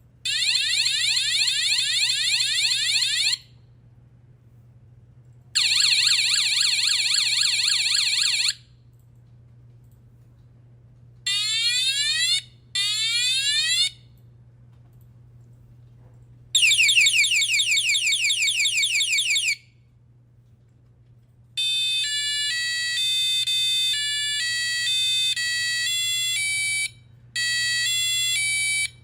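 Buzzer of a DM-45F2022 sound effect module playing its built-in electronic effects one after another, each switched with the module's button: bursts of rapidly repeating pitch sweeps like a siren or laser, a few seconds each with short pauses between. From about two-thirds of the way through comes a beeping electronic tune of stepped tones.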